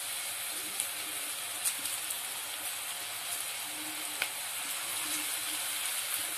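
Gram-flour-battered masala peanuts deep-frying in hot oil: a steady sizzle with a few sharp pops.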